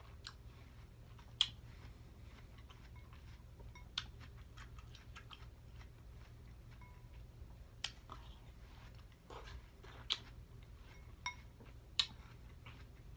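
Close-miked eating of juicy watermelon: scattered wet mouth clicks and smacks from chewing, about six sharp ones, over a low steady hum.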